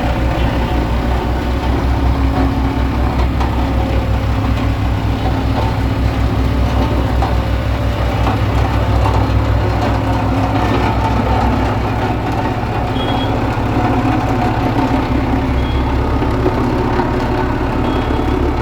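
Diesel engine of heavy construction machinery running steadily at working speed, with a continuous low throb.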